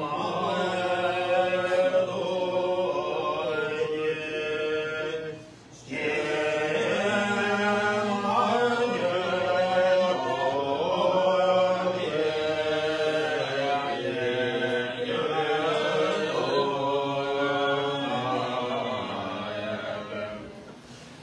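Tibetan Buddhist prayers chanted by a group of voices in unison, a steady sung recitation with a short pause for breath about five and a half seconds in.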